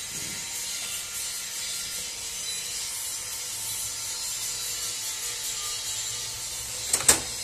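Bolts being fitted by hand around the bearing plate of a power tiller gearbox: a steady scraping rub of the metal parts being handled, then two sharp knocks close together near the end.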